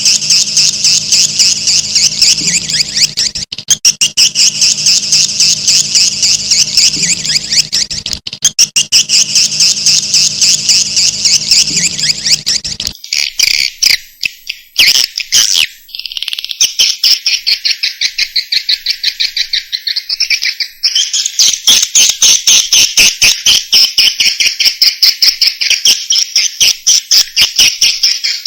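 Swiftlet calls: a recorded swiftlet lure call of dense, very rapid chittering trills. A low steady hum underneath stops abruptly about 13 seconds in, where the recording changes to a cleaner stretch of the same chittering.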